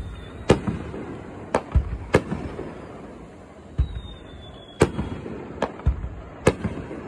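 Fireworks display: irregular sharp bangs of aerial shells bursting, several with a deep boom, with smaller pops between them.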